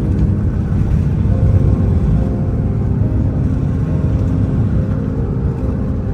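Steady low rumble of a vehicle in motion, with faint music beneath it.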